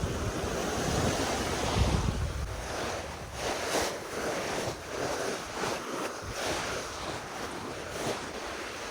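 Sea waves washing ashore, with wind buffeting the microphone, heaviest in the first couple of seconds.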